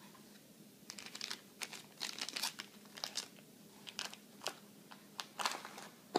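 Crinkling of a thin plastic bag and rustling of a cardboard box being handled, in irregular bursts starting about a second in, with a sharp tap at the very end.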